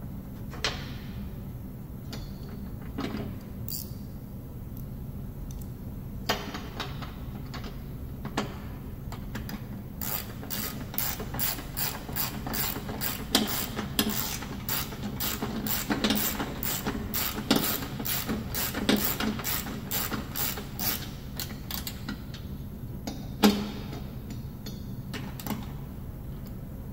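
Ratcheting wrench clicking in a long run of quick strokes through the middle, tightening the centre bolt of a mower-deck idler pulley. Scattered metal clinks and knocks of tools on the steel deck come before and after, the loudest a sharp knock near the end.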